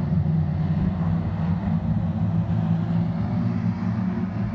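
Engines of a pack of small oval-track race cars running together at racing speed, a steady drone.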